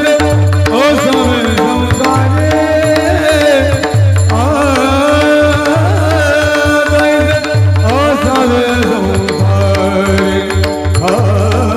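Devotional Varkari kirtan music: voices singing the abhang with gliding melodic lines over a sustained drone, while a hand drum marks time with a deep bass stroke about once a second.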